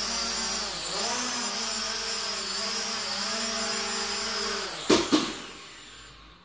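Hubsan X4 H502E quadcopter's motors and propellers whining in a steady hover, with a brief dip in pitch about a second in. Near the end the whine drops in pitch and there are two sharp knocks as the drone hits the floor, then the motors wind down and the sound fades out.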